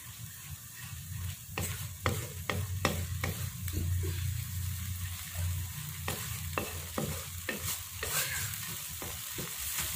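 A spatula scraping and knocking against a wok in irregular strokes as thick fried rice porridge is stirred, over a steady sizzle. The porridge is being stirred until it dries out.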